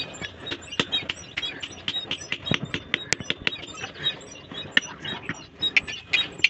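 Small hand hammer tapping on a khurpi (garden trowel) blade of leaf-spring steel on a steel post anvil while its wooden handle is fitted: a quick, uneven run of sharp metallic taps, about two to three a second.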